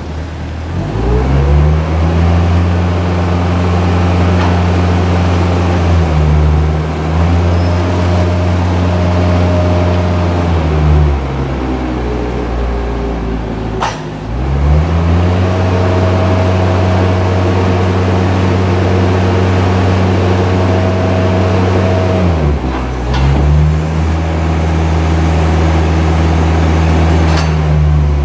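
Manitou MT 625 telehandler's engine revving up and holding high revs while the hydraulics move the fork boom, lowering it and then raising it again. The revs drop back briefly about eleven seconds in and again shortly before the end, and a thin steady whine rides over the engine at times.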